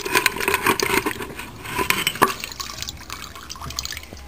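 Liquid sloshing and splashing with small clicks as a moped engine part is washed. The sound is busy for the first two seconds or so, then thins out.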